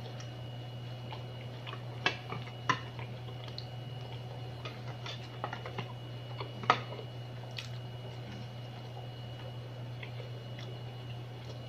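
Hand-eating of a crab and rice meal from a plate: scattered, irregular small clicks and taps of crab shell, fingers and plate, with chewing, over a steady low hum. The sharpest taps come about two seconds in, just under three seconds in, and near the middle.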